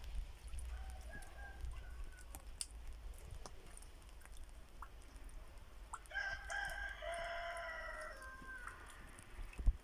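A rooster crowing twice: a faint crow about a second in, then a louder, longer crow lasting about two and a half seconds from about six seconds in, with scattered light ticks throughout.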